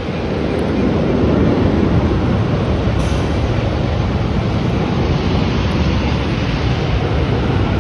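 Embraer E195 jet airliner's engines at takeoff thrust: a loud, steady jet noise that swells over the first second or so and then holds.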